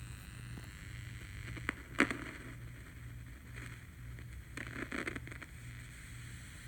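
Low, pulsing electrical buzz from a homemade LM386 amplifier circuit and the speaker it drives. Two sharp clicks come about two seconds in, and there is brief handling rustle near the five-second mark.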